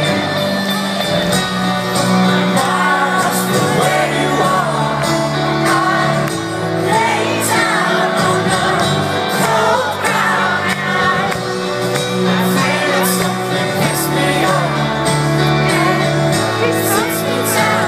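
Live rock band playing a slow song through a concert PA, with sustained low chords and a drawn-out sung vocal line that rises and falls through the middle.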